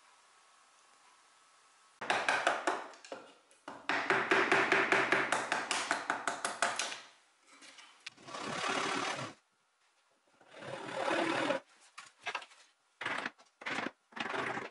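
A rapid run of loud clicking strokes, several a second, lasting about five seconds. Then a hand chisel scrapes and pares old wood on the cabinet's door frame in separate strokes, the last ones short.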